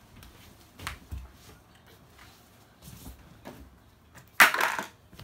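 Hard plastic toy-kitchen pieces knocking together and being handled: a few light knocks, then a louder half-second clatter near the end.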